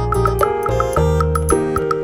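Background music: a light, bouncy tune on mallet percussion and keys over a steady bass.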